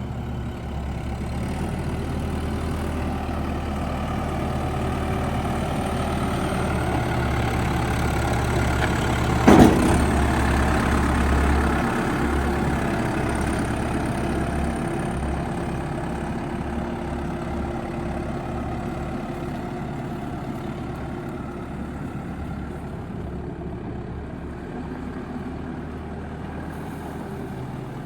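Diesel engine of a 2001 New Holland backhoe running steadily, getting louder toward the middle and then easing off, with one sharp knock about nine and a half seconds in.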